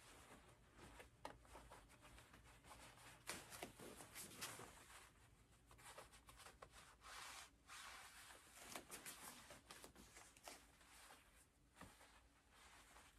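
Faint, irregular rustling and swishing of a cotton martial-arts belt and uniform fabric as the belt is wrapped and its ends tucked under the other wraps.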